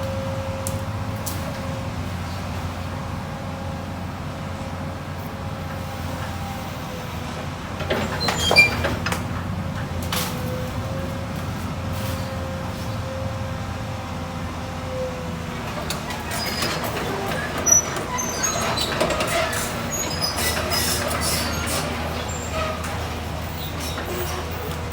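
Komatsu PC200 hydraulic excavator running steadily, with a held whine over the engine drone. Sharp cracks ring out about eight and a half and seventeen and a half seconds in, followed by a spell of crackling.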